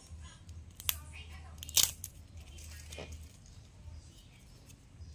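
Three sharp taps about a second apart, the middle one, near two seconds in, the loudest with a short ring after it, over a low steady hum.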